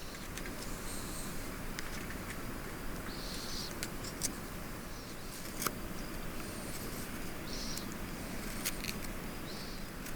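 Quiet outdoor ambience: a steady soft hiss with a few short high chirps from insects or birds, and a few sharp light clicks.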